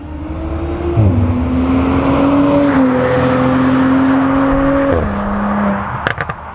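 Mercedes-Benz C450 AMG's twin-turbo V6 pulling hard through the gears on a valved aftermarket exhaust. The engine note climbs and drops at each upshift, about a second in and again near five seconds. A short burst of sharp exhaust crackles follows near the end.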